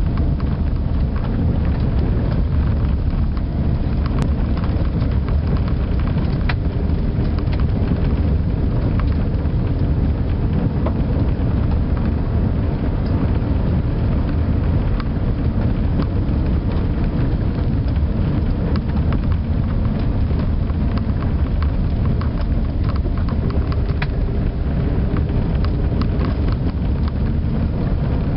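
Inside a car driving on a dirt road: a steady low rumble of engine and tyres, with scattered small ticks and rattles throughout.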